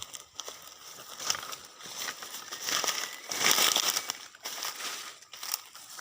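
Dry rustling and crunching, uneven and crackly, growing to its loudest burst about three and a half seconds in.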